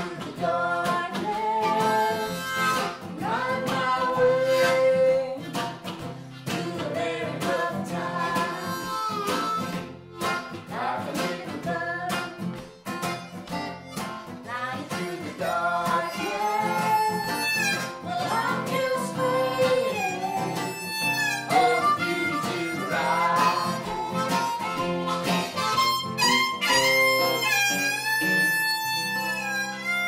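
Harmonica playing a lead line of bending, sliding notes over a strummed acoustic guitar and an electric guitar, live trio. The harmonica moves to higher held notes near the end.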